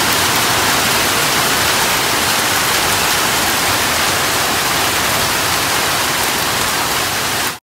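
Heavy rain mixed with hail pouring down onto paved ground in a steady, loud roar that cuts off abruptly near the end.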